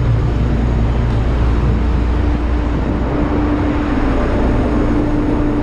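Steady, loud drone of a container ship's machinery inside the steel cargo hold: a low hum with a steady mid-pitched tone above it.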